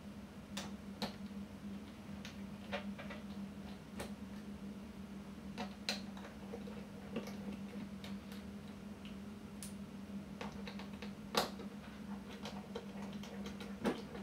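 Irregular small clicks and ticks of a small Phillips screwdriver and fingers working the tiny screws and plastic parts of a Sony ILX-LR1 camera's opened rear cover, with a sharper click about eleven seconds in. A steady low hum runs underneath.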